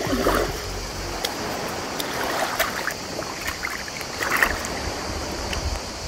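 Small waves lapping at a sand-and-pebble shoreline: a steady wash with a few brief splashes.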